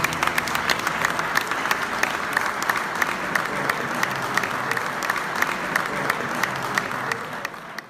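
Banquet guests applauding: a dense, steady patter of many hands clapping, fading out near the end.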